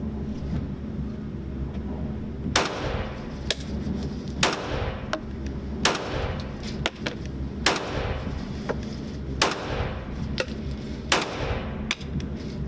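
Smith & Wesson M&P9 2.0 9mm pistol firing six slow, aimed shots, one every second and a half to two seconds, each crack followed by a short reverberant tail in an indoor range lane. Fainter reports fall between the shots, over a steady low hum.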